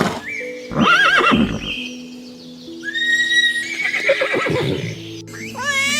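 Horse whinnying: a quavering, wavering call about a second in, followed by further calls, over soft background music.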